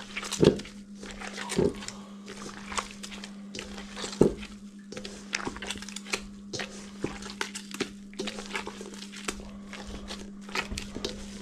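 Gloved hands squeezing and kneading sticky pie-crust dough in a stainless steel bowl: irregular squishing, with short clicks and crackles from the gloves and bowl, over a steady low hum.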